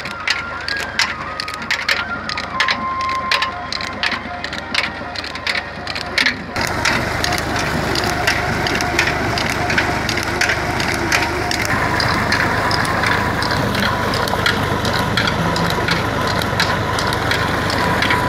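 Ford 4600 tractor running and driving a tube-well turbine pump through its PTO shaft, with a rapid, irregular clatter. About six seconds in, the sound changes abruptly to a steady rush of water gushing from the pump's discharge pipe, with the clatter still going on underneath.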